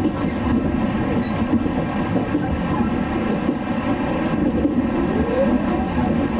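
Inside the cabin of the Inaho limited express train: steady low running noise of the train in motion, with a faint rising whine about five seconds in.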